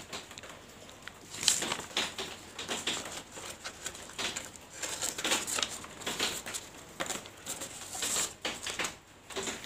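Handling noise from a sheet of paper and small glass fish tanks on a table: irregular paper rustles and light taps, with a few louder rustles.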